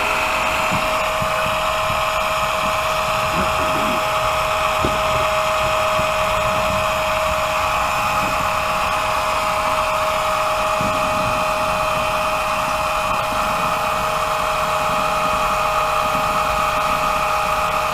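Small electric oil extractor pump running with a steady whine, sucking engine oil up through a thin tube pushed down the dipstick hole.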